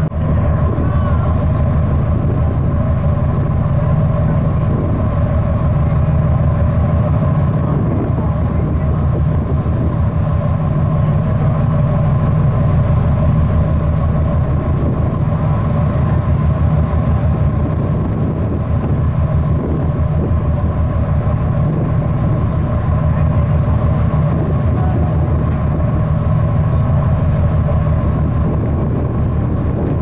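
Ferry's engines running steadily: a low drone with a few steady higher hum tones over it.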